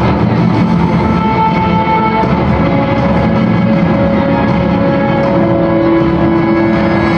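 Loud music: long held notes that shift pitch every few seconds over a dense, steady low accompaniment.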